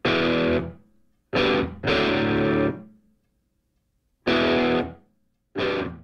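Music: distorted electric guitar chords struck in short separate stabs, each ringing for about half a second to a second, with silence between them.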